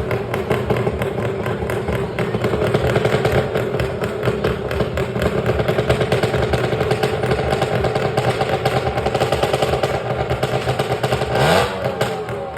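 Motorcycle engine running hard as it circles the wall of a well-of-death drum, with a brief rise in revs near the end.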